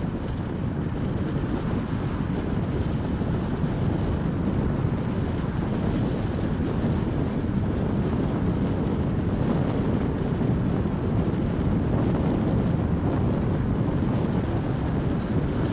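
Steady rumble of road and wind noise from a moving vehicle travelling along a main road, with wind on the microphone.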